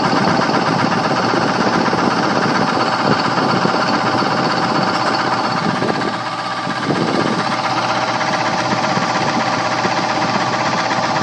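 A 1/3 hp electric blower motor running very noisily, with a steady mechanical clatter and vibration from a bad bearing. It dips briefly about six seconds in, then cuts off abruptly at the end.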